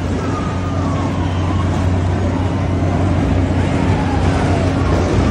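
Steady low mechanical hum of a circling fairground ride, with two faint tones sliding down in pitch over it.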